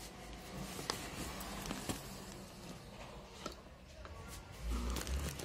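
Red plastic screw-top lid being unscrewed and taken off a clear plastic candy jar: a scraping of the threads with a few sharp clicks, and low bumps near the end.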